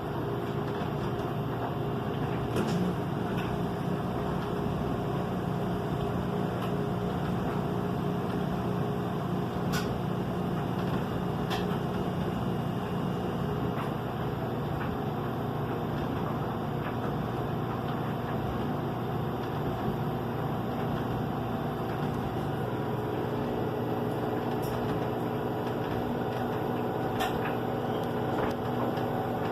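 LG front-load washing machine drum spinning near the end of its cycle: a steady motor hum made of several held tones. One tone drops out about a third of the way in and another comes in later, with a few faint ticks along the way.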